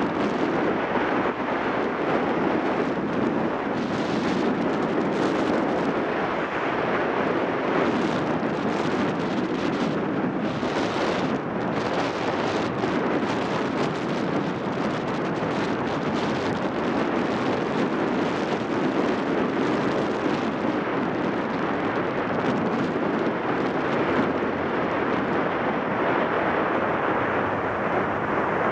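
Wind buffeting the microphone at riding speed over the steady running of a Yamaha XTZ 750 Super Ténéré's parallel-twin engine and its tyres on the road.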